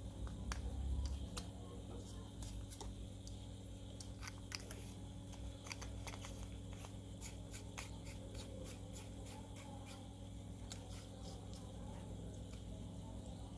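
Scattered light clicks and taps of an 18650 battery pack being assembled by hand, the soldered cells fitted into the pack's casing, over a steady low hum.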